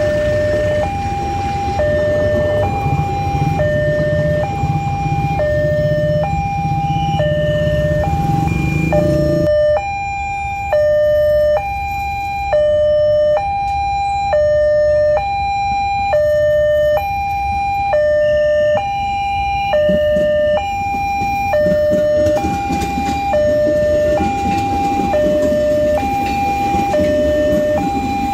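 Railway level-crossing warning alarm sounding a steady alternating high-low electronic two-tone. Under it a passing passenger train rumbles for the first nine seconds and then cuts off abruptly, and an electric commuter train rumbles in near the end.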